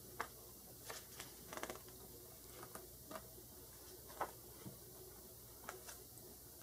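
Faint handling of a hardcover picture book as a page is turned: a few scattered soft paper rustles and light taps.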